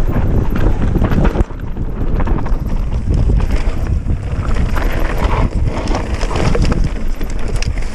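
Transition Patrol enduro mountain bike descending a rough dirt trail: tyres crunching over dirt and stones while the bike rattles and clatters over bumps, with wind buffeting the microphone.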